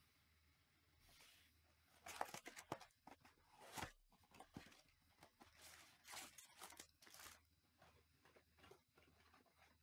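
Cardboard Panini Select baseball hobby box being torn open and its foil-wrapped packs slid out and set down, a run of papery tearing, rustling and scraping. The loudest moments come about two and four seconds in, and the sounds thin out near the end.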